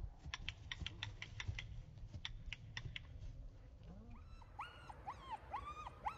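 A string of short, sharp clicks, about three a second, then a dog whining and yipping in high, rising-and-falling cries from about four and a half seconds in.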